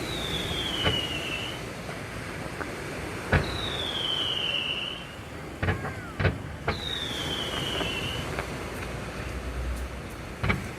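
Fireworks going off: sharp bangs, three of them each followed by a high whistle that falls in pitch for about a second, with more bangs in the middle and near the end. A steady hiss runs underneath.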